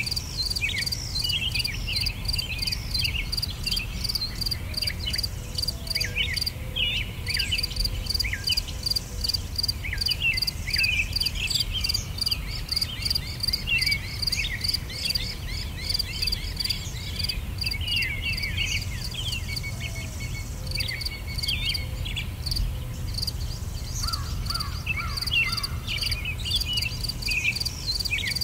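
Outdoor nature ambience: a rapid, evenly pulsing high insect-like trill runs throughout, with many short bird chirps over it and a low rumble underneath.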